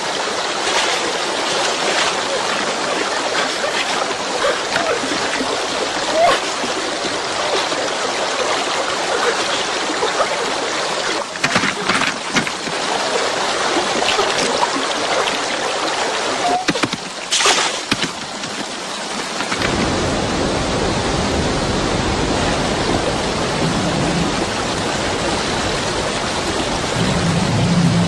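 Fast river water rushing steadily, with a few sharper splashes near the middle. About two-thirds of the way through, the rushing turns fuller and lower.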